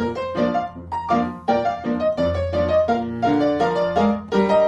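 Background music: a quick run of evenly spaced notes, about four a second, over a steady bass line.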